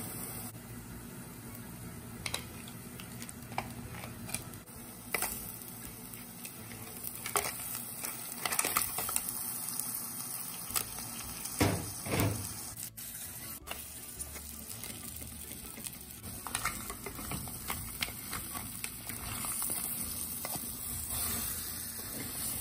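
Onion-tomato masala sizzling and bubbling in a pan, with scattered knocks and scrapes as it is stirred. The loudest knocks come around the middle, as raw crab pieces are added to the masala.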